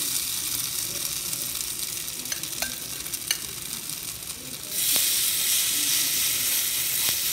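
Grated potato frying in shallow oil in a nonstick pan: a steady sizzle with a few light clicks. About two-thirds of the way through, the sizzle grows suddenly louder as a fresh spoonful of raw grated potato goes into the hot oil.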